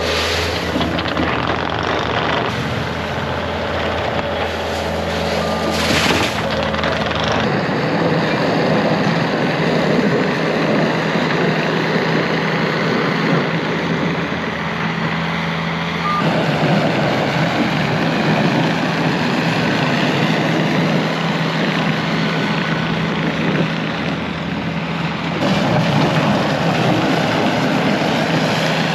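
Loader engine running steadily while clearing snow, its sound shifting a few times as the machine works.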